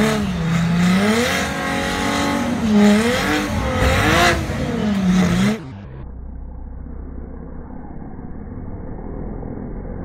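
Turbocharged BMW straight-six engines revving hard at a drag-race start line, the pitch rising and falling in repeated waves. About five and a half seconds in the sound turns suddenly quieter and muffled, leaving a steady low rumble as the grey car spins its tyres in a burnout.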